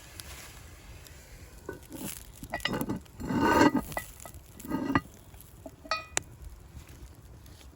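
Metal utensils clinking and scraping against cookware, with a longer, louder scrape about three and a half seconds in and a ringing clink about six seconds in.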